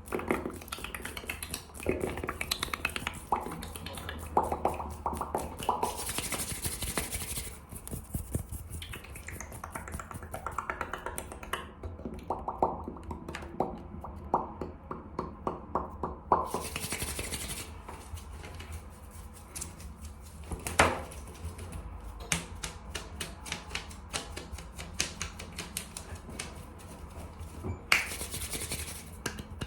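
Fast ASMR hand sounds and dry mouth clicks: rapid crackling clicks and taps, with three short hissing bursts of hands rubbing together and a sharp finger snap about twenty seconds in.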